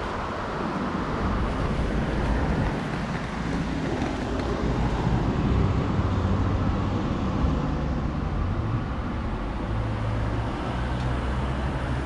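Steady road traffic, cars passing on a nearby road with a low engine hum, a little louder midway through.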